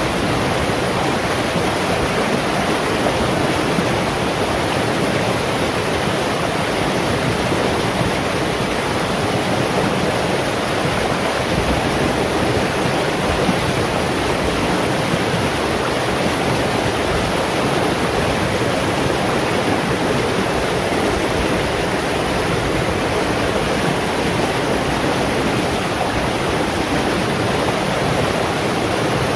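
Shallow rocky stream rushing over stones and boulders, a steady, unbroken flow of water.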